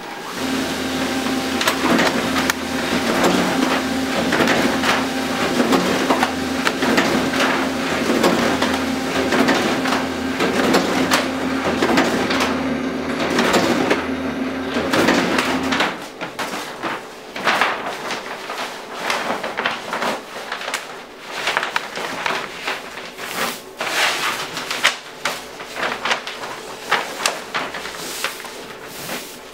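Neolt Neofold 920 S large-format drawing-folding machine at work: a steady motor hum with continuous paper rustling and clicking as a sheet is drawn through and fan-folded. About sixteen seconds in, the hum stops and the irregular crackle and rustle of paper go on as the folded sheet comes out.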